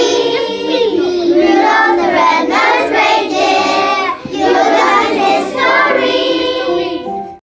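A class of young children singing a Christmas carol together in unison, with a brief breath between phrases about halfway through; the singing cuts off abruptly near the end.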